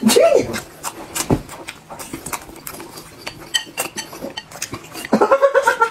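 Close-miked eating: wet chewing and slurping from a bowl, with many small clicks of mouth and chopsticks against the dish. There is a brief pitched mouth sound at the start and a longer one near the end.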